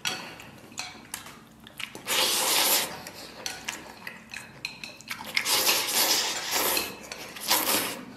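Instant noodles slurped off chopsticks in three long, hissing slurps about two, five and a half and seven and a half seconds in, with small clicks of chopsticks against a bowl between them.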